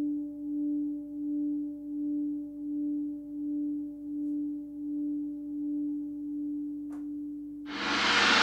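Hand-forged singing bowl tuned to about 291 Hz (D) ringing out on its own, its single tone wavering in a slow pulse about one and a half times a second as it fades. Near the end a loud gong wash sets in.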